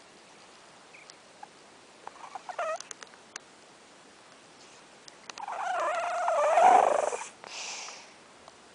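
A sleeping domestic cat snoring: a short snore about two seconds in, then a longer, louder snore around five to seven seconds in, followed by a brief breathy exhale.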